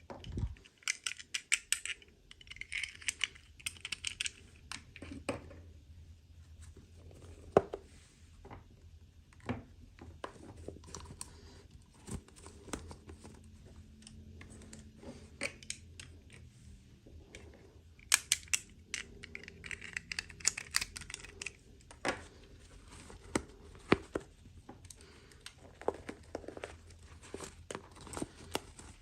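Toy packaging being unboxed by hand: two stretches of crinkling and rustling, one near the start and one a little past halfway, with many sharp clicks and taps of small plastic pieces in between.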